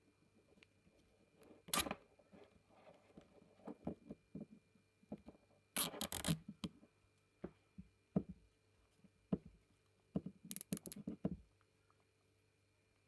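Handling noise from small parts: a few short bursts of scraping and rapid clicking, the strongest about two seconds in, around six seconds in, and near eleven seconds, with quieter taps between.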